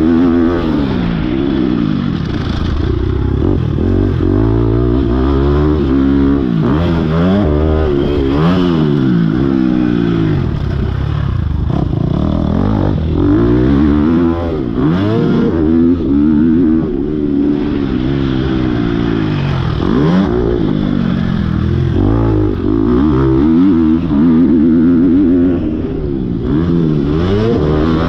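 Motocross dirt bike engine ridden hard around a track, revving up and dropping back again and again as the rider accelerates, shifts and rolls off for jumps and corners.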